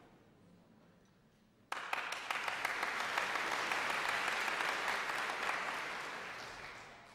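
Audience applauding: the clapping breaks out suddenly about two seconds in, holds steady, and fades away near the end.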